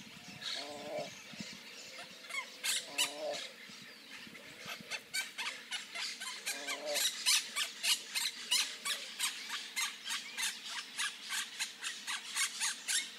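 Songbirds at a nest: a rapid series of short, high chips that comes quicker and louder from about halfway through, with three lower, drawn-out calls a few seconds apart in the first half.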